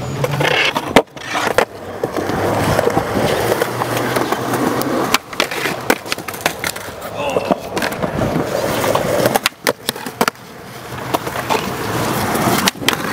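Skateboard wheels rolling on concrete and the trucks grinding along a concrete ledge, with several sharp clacks of the board hitting and landing: one about a second in, a cluster around ten seconds in and another near the end.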